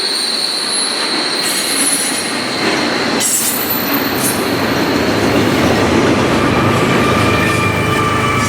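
A train rolling past, its steel wheels squealing against the rails in a steady high-pitched tone over the rumble and clatter of the cars. A lower squeal joins in near the end.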